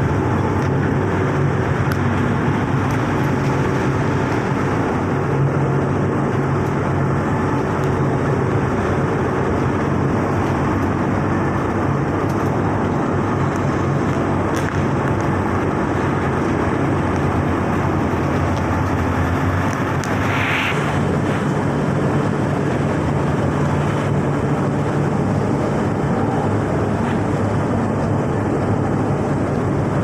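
Plastic film washing line running: a steady machinery drone with a low motor hum.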